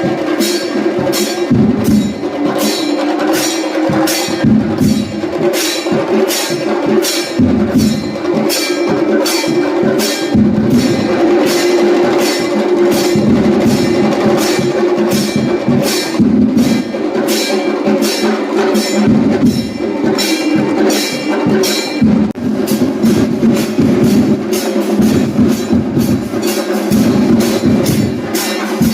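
Music with a steady percussive beat of sharp, evenly spaced strokes over a continuous low drone.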